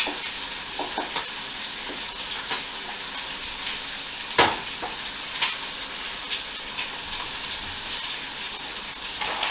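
Food frying in a pan on the stove, a steady sizzle. A few clinks and knocks of utensils and crockery over it, the loudest about four and a half seconds in.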